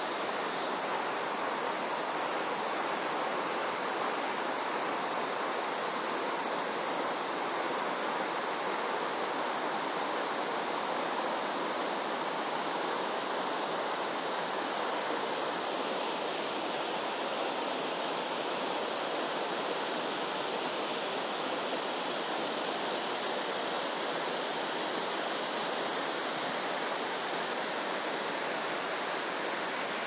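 Tall waterfall pouring down a rock face into a pool: a steady, even rush of water that does not change.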